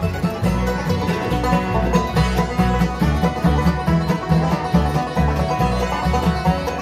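Acoustic bluegrass band playing live: banjo, fiddles, mandolin, resonator guitar and acoustic guitars over an upright bass keeping a steady beat.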